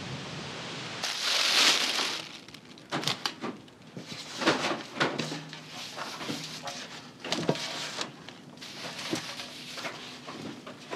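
A short loud hiss about a second in, then gloved hands rubbing and packing dry spice rub onto a large cut of meat in a stainless steel pan: gritty rustling and scraping with occasional knocks against the pan.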